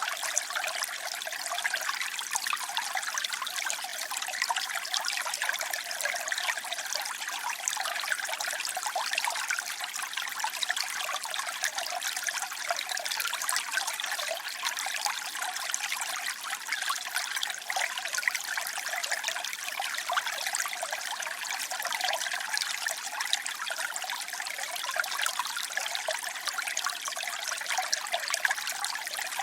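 Water trickling and splashing steadily, a bright, even babble of small flows with no pauses.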